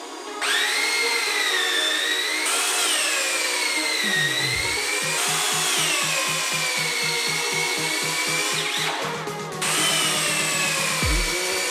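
Electric drill boring into a thick wooden beam, its whine rising and falling in pitch as the bit loads up and eases off. It starts about half a second in, slackens briefly near the end, then runs again.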